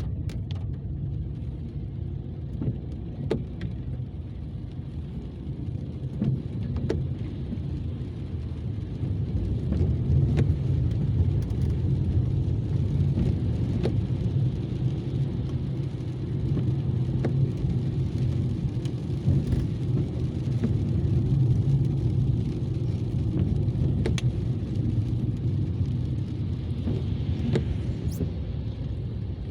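Steady low rumble of a car driving, heard from inside the cabin, with scattered faint clicks.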